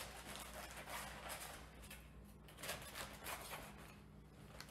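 Kitchen knife cutting through the thick base of a head of escarole on a wooden cutting board: faint, irregular crunching cuts through the stalk.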